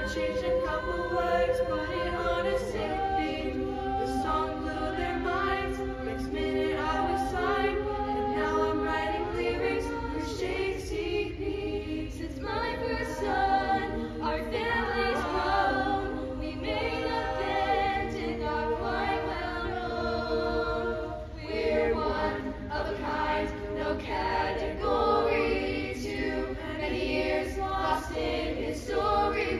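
Youth choir of mostly girls' voices singing a cappella in several parts, with no instruments.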